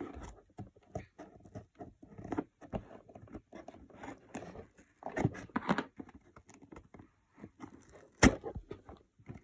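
Cardboard being cut in a curve through two layers: irregular crunching snips and scrapes, with one sharp, loud snap near the end.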